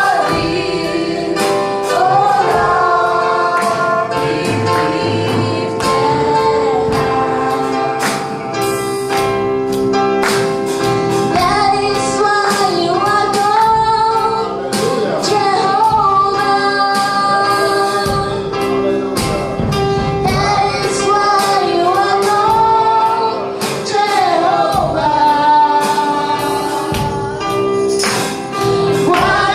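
Live gospel praise-and-worship singing, a woman's voice prominent, over long held chords and a steady beat of percussion.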